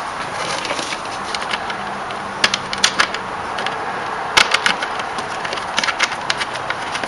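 Scattered sharp clicks and knocks from a small plastic fan being handled against its wooden mounting board, in small clusters, over a steady hiss.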